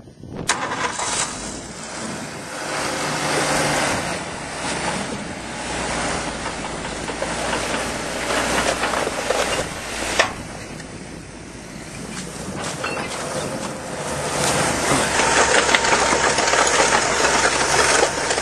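Nodwell tracked vehicle's engine starting and running, getting louder about fourteen seconds in as it revs up and the machine gets moving.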